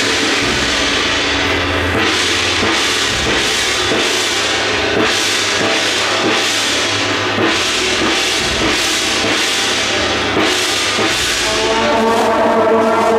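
Temple-procession percussion: drums with gong and cymbal crashes struck in a steady beat, a crash every second or less. Near the end a loud sustained pitched tone joins in.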